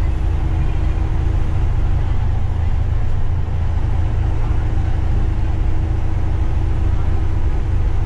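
Steady low engine drone and road rumble of an intercity coach cruising on the highway, heard from the driver's seat, with a faint steady hum over it.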